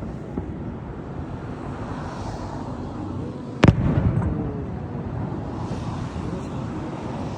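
Fireworks: a single loud bang about halfway in, followed by a rolling rumble, with a faint pop near the start and a steady background of outdoor noise.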